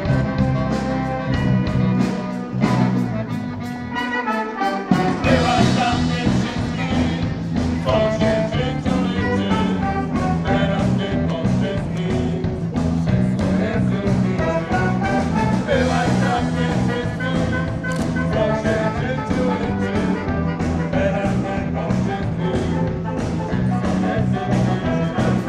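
Wind band playing live: brass and saxophones over a steady beat and bass line. About two and a half seconds in the bass drops out, coming back with the full band around five seconds in.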